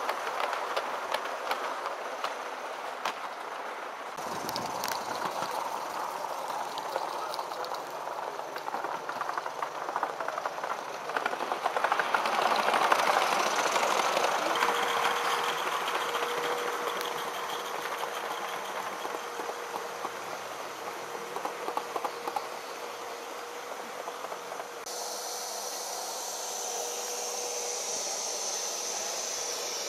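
Large-scale model train running past on the track, its wagon wheels clicking and rumbling over the rails, louder as it passes close. A faint steady tone comes in about halfway through.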